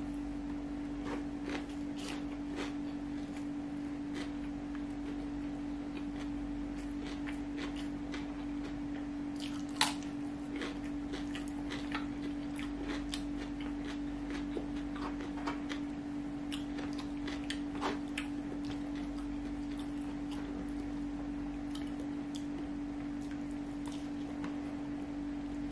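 Close-up mouth sounds of a man eating fried rice by hand: chewing with scattered wet clicks and smacks, a sharper one about ten seconds in. A steady low hum runs underneath.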